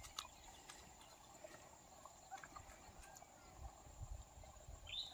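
Near silence: faint outdoor field ambience with a steady high hum, a few soft thumps and clicks, and a short high chirp near the end.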